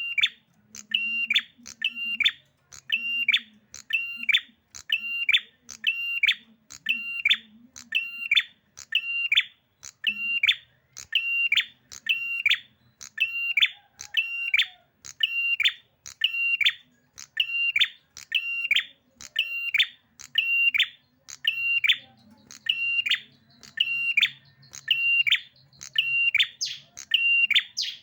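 A prinia (prenjak merah) calling in a steady, rapid series of short, high, identical notes, about one every three-quarters of a second, without a break. The insistent repetition is the excited 'emosi' calling that prenjak keepers prize.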